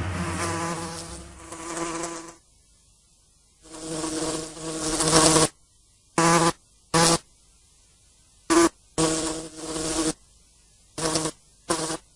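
Housefly buzzing, coming and going in bursts: two longer passes in the first half, then several short buzzes broken by silence.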